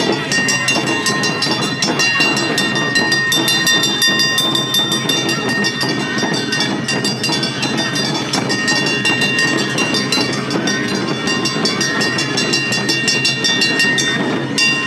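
Awa odori festival band playing: a metal kane gong clanging in a fast, steady beat with drums, and ringing high notes held over it.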